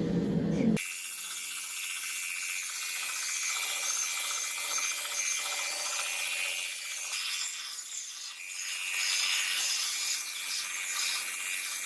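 Grinder shaping a forged railroad-spike knife: a steady grinding of steel on the abrasive that eases briefly about eight seconds in, then picks up again.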